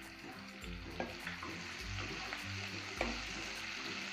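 Spices and chopped coriander sizzling in hot oil in a kadhai as the tempering is stirred with a steel ladle. The ladle scrapes and clicks against the pan a few times.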